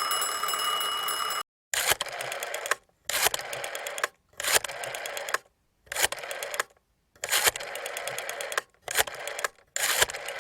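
A small mechanism clicking: a steady ringing tone for about a second and a half, then about seven rattling runs of fast clicks, each starting with a sharp click and lasting from half a second to over a second, with short pauses between them.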